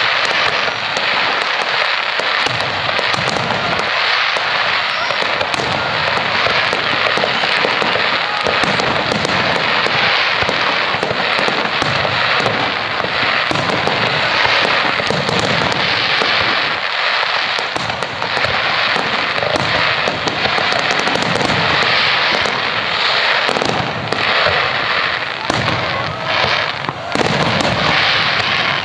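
Aerial fireworks display: a dense, continuous crackle of bursting stars with many sharp pops, and deeper shell bursts booming in again and again.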